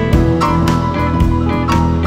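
Live blues-rock band playing an instrumental passage: electric guitars, bass and drum kit, with a steady drum beat and a guitar note bent upward about half a second in.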